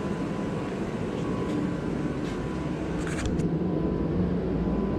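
Steady roar of a running shop heater, with a few light clicks and knocks in the middle.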